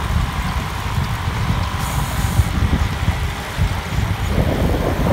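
Wind buffeting the microphone of a phone carried on a moving road bike, a loud unsteady rumble over the steady hiss of tyres on asphalt.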